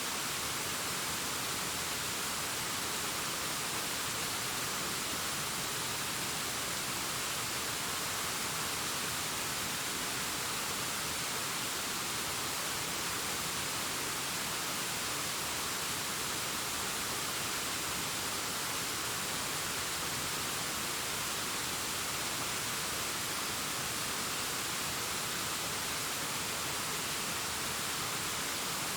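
Waterfall cascading down a rockface: a steady, even rush of falling water, hissy and bright with little low rumble, unchanging throughout.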